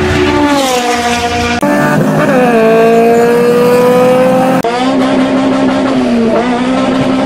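Honda K20 2.0-litre four-cylinder engine accelerating hard, its note climbing in pitch as it pulls. The sound changes abruptly about one and a half and four and a half seconds in, as one take gives way to another.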